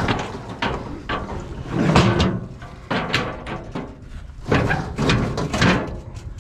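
Metal rear gate of a Big Tex rental trailer being heaved shut against a load of scrap and latched: repeated clanks, knocks and scraping of metal on metal, loudest about two seconds in and again near the end.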